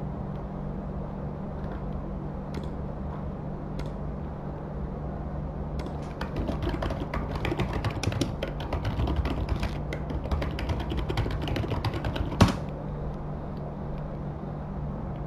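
Computer keyboard typing: a few single clicks at first, then a fast run of keystrokes from about six seconds in lasting about six seconds, ending in one sharper, louder click. A low steady hum runs underneath.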